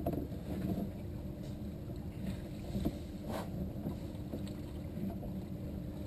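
Wind rumbling on the microphone aboard a small open fishing boat, with a faint steady hum and a couple of light knocks about three seconds in.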